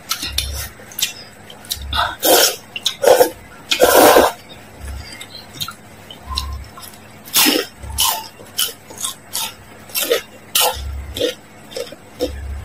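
Close-miked eating sounds: noodles slurped in several loud bursts in the first few seconds, the longest about four seconds in, then wet chewing, mouth clicks and crunching of fried taro spring rolls, with chopsticks tapping against a glass bowl.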